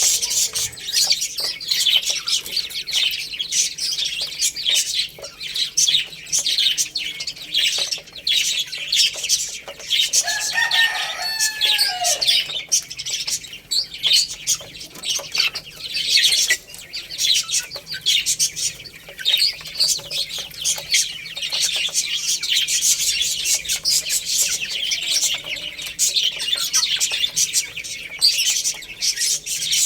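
A group of baby chicks chirping continuously, with many high-pitched peeps overlapping. About ten seconds in there is a single lower, gliding call from an adult chicken.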